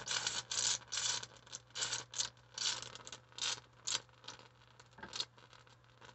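High-voltage arc from two flyback transformers in series, crackling and sputtering in irregular bursts over a steady low hum; the bursts thin out in the second half.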